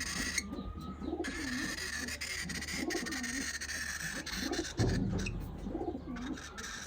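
Pigeons cooing: about five low, rolling coos in a row, over a steady low hum.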